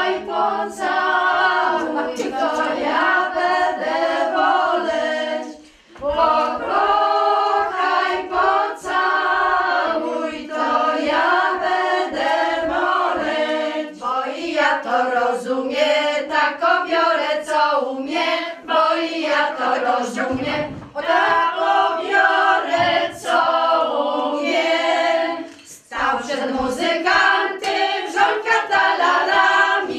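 A group of women singing a Polish folk song together, unaccompanied, in long held phrases with brief pauses for breath about 6, 20 and 26 seconds in.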